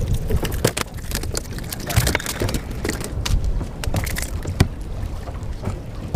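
Wind buffeting the microphone on an open boat deck, a steady low rumble, with scattered clicks and knocks from fishing tackle being handled as a fish is hand-lined in. A sharper knock comes about four and a half seconds in.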